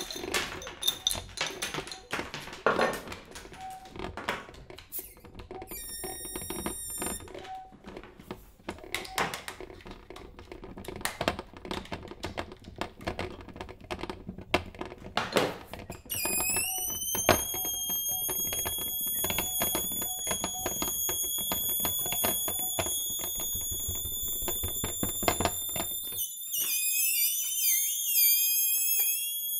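Improvised music played on household objects: dense taps, clicks and rattles with a brief high ringing note, then about halfway through a high, steady whistling tone sets in and holds, wavering up and down in pitch near the end as the tapping stops.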